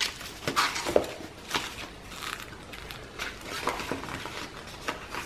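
Paper pages and envelopes of a chunky handmade junk journal rustling and crinkling as they are handled and turned, with irregular light taps and clicks.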